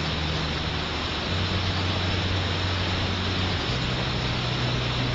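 Steady roar of a high waterfall in heavy flow, a continuous rushing of falling water. A low steady hum runs underneath and shifts pitch about a second in and again near the end.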